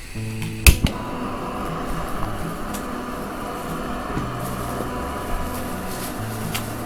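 Background music of slow, held low notes that begins just after the start, with one sharp click under a second in.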